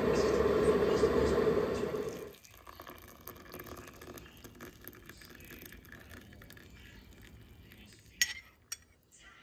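Electric kettle rumbling at the boil, cutting off abruptly about two seconds in. Hot water is then poured quietly into a ceramic mug over a tea bag. Near the end, a spoon clinks against the mug twice.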